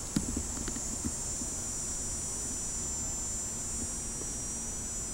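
Steady high-pitched chorus of insects such as crickets in summer foliage, over a low rumble. A single sharp click comes just after the start.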